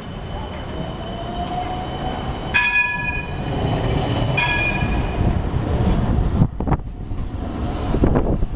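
City tram going by: a low rumble on the rails with a motor whine rising in pitch, and two short ringing bell signals about two seconds apart. Near the end, a run of sharp clicks and knocks.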